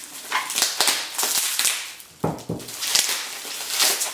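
Parcel packaging being handled and unwrapped: irregular crinkling and rustling, with a couple of dull knocks about halfway through.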